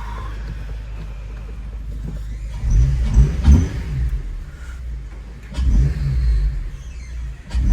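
Car engine and road noise heard from inside the cabin of an FA5 Honda Civic Si under way. A steady low drone for the first few seconds, then loud surges as it accelerates, about three seconds in and again near six seconds.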